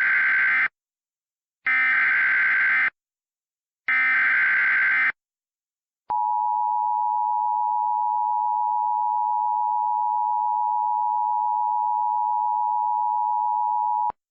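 The opening of an Emergency Alert System activation. Three bursts of SAME digital header data come about a second each and a second apart. After a short pause, the EAS two-tone attention signal (853 and 960 Hz together) is held steadily for about eight seconds, then cuts off.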